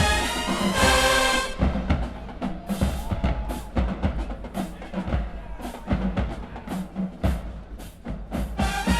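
Marching band music: the brass section plays for about a second and a half, then drops out for a drumline break of sharp bass drum and snare hits, and the brass comes back in at the very end.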